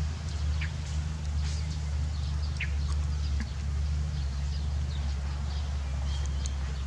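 Steady low motor-like hum, with short high chirps scattered over it, like birds.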